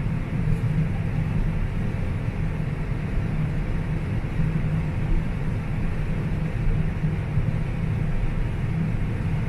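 Combine harvester running steadily while harvesting corn, heard as a constant low drone of engine and threshing machinery from inside the cab.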